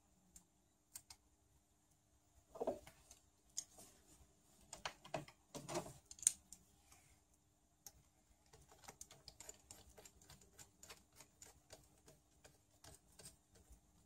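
Faint small plastic-and-metal clicks from hand work on an RC buggy's front wheel: a few soft knocks as the wheel is fitted, then from about eight seconds in a quick run of small ticks as a hex driver turns the wheel fastener.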